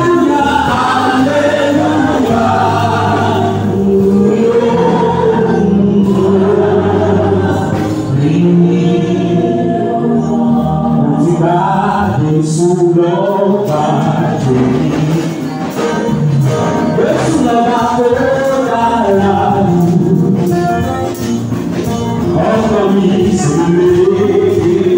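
Congregation singing a gospel song together in chorus.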